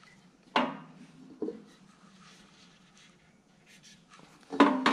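Felt-tip marker scratching on an aluminium intake manifold end casting while the casting is handled, with light knocks and scrapes of the metal parts: a sharp knock about half a second in, a smaller one a second later, and a louder clatter near the end.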